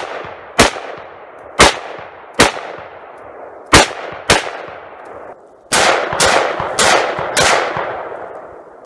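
AR-15 rifle in .223/5.56 firing about ten single semi-automatic shots at an uneven pace, each a sharp crack with an echoing tail. The shots come a half second to a second and a half apart, the last four closer together.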